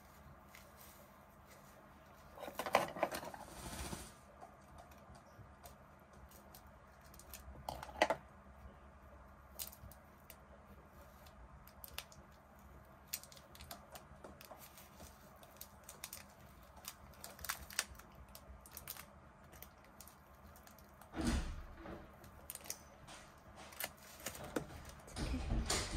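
Sticky tape being peeled off a pigeon's wing feathers: faint, scattered crackles and clicks, with a few brief rustling bursts about 3 seconds in, about 8 seconds in, past 21 seconds and near the end.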